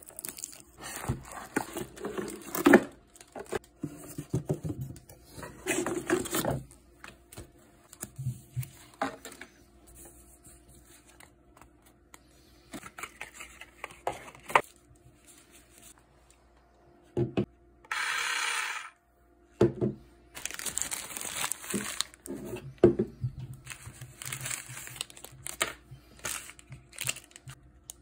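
Plastic packaging crinkling and rustling in irregular bursts as a clear plastic tray and sealed plastic bags are handled and opened. About two-thirds of the way through comes one steady, even noise lasting about a second.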